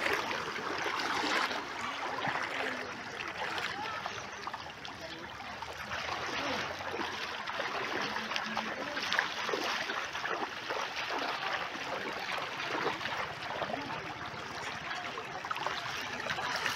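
Shallow, muddy flood water sloshing and trickling as a cast net is dragged through it by hand and lifted out.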